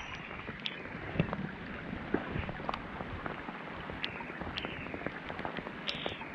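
Steady rain falling on a lake surface, with many sharp drop ticks close by. A baitcasting reel is cranked to bring in a lure.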